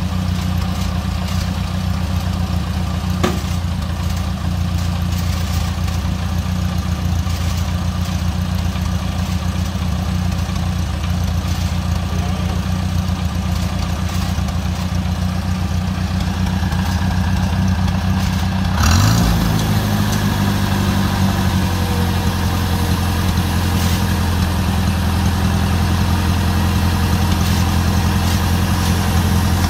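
Farmall Cub's four-cylinder flathead engine idling steadily. About two-thirds of the way in there is a brief rising surge in engine speed, and it then settles back to a steady idle on a slightly different note.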